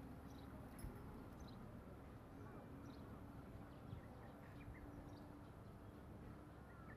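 Near silence: faint outdoor background noise with a few faint, short, high chirps.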